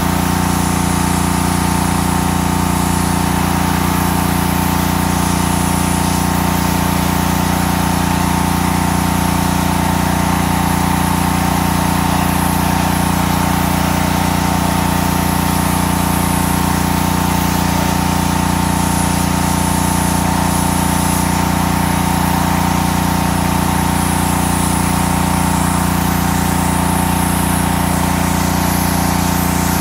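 Honda-powered gas pressure washer's small four-stroke engine running steadily at a constant speed.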